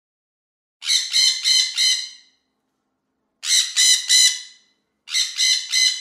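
Macaw squawking: three bouts of about four harsh, raspy calls each, separated by short pauses.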